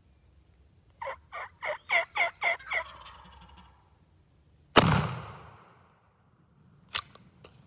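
A wild turkey gobbling: a rapid rolling run of about eight notes that trails off. About two seconds later a single loud gunshot, most likely the hunter's shotgun, echoes and dies away, followed by a few sharp clicks near the end.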